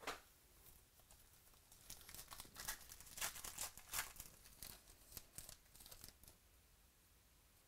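Baseball card pack wrapper being torn open and crinkled: a quick run of faint crackles that starts about two seconds in and stops about six seconds in.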